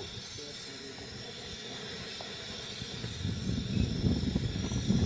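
Wind buffeting the camera microphone: a low, irregular rumble that grows louder over the last two seconds, over a faint steady hiss.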